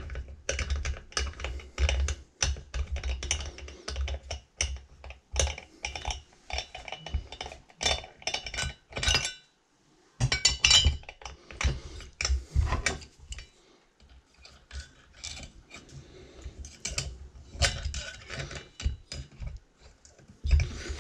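Irregular metal clicks, clinks and knocks of a long Allen key working the cylinder head bolts out of a Poulan 3400 chainsaw, with the bolts and tool being handled. The sound breaks off for a moment about halfway through.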